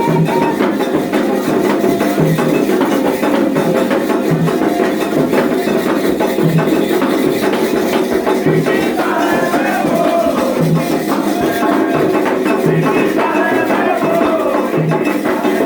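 Percussion-led music: low drum hits come roughly once a second under a dense rattling shaker and wood-block rhythm. Voices singing join in from about nine seconds in.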